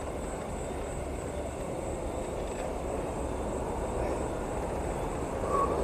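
Steady low rumble of distant highway traffic.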